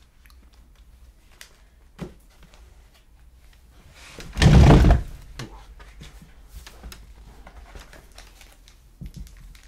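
Trading card box and packs being handled on a table: scattered light clicks and taps, with one loud, rough scraping rustle lasting under a second about halfway through.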